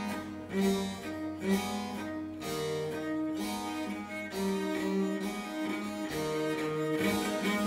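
Viola da gamba bowing a melody of held notes, with harpsichord accompaniment, in Baroque chamber music.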